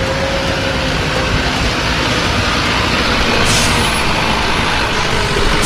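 Loaded dump truck's diesel engine running as the truck moves, with a brief hiss about three and a half seconds in.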